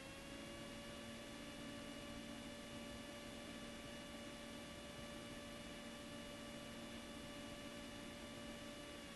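Faint, steady hum with a whining tone and its overtones on a Cessna 172's headset intercom audio in flight. Its pitch rises slightly at the start and drops back near the end.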